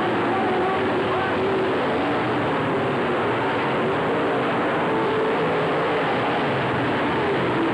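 Several dirt-track stock cars' engines running as the field races around the oval: a steady, dense engine noise with faintly wavering pitches.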